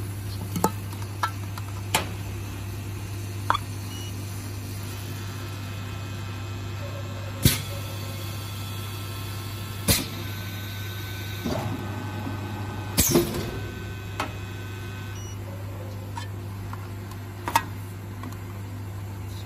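Steady low machine hum with scattered sharp clicks and knocks from a tin can and a handheld oxygen analyzer being handled, the loudest knocks about a third of the way in, halfway, and two-thirds in.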